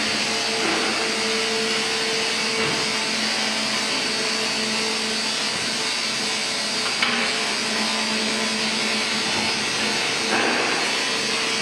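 Steady workshop machinery noise from a tank welding line: a constant whirring hum over a broad hiss, with one sharp knock about seven seconds in.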